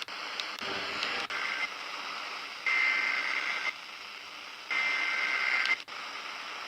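Emergency Alert System SAME header: three bursts of screechy digital data tones, each about a second long and about a second apart, over radio static. The first burst is faint and the next two are loud. This data header opens an emergency alert broadcast.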